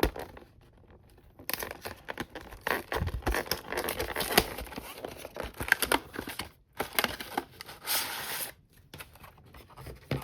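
Plastic shrink-wrap and packaging on a trading-card collection box being torn open and crumpled by hand: irregular crackling and tearing that starts about a second and a half in and dies down near the end.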